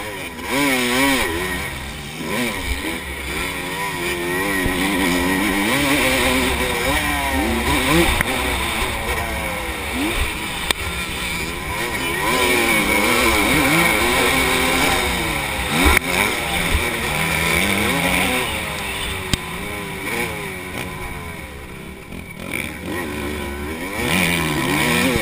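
Motocross bike engine heard from on board, its pitch rising and falling repeatedly as it revs up and shifts through the gears, over a steady rush of wind. A couple of sharp knocks stand out along the way.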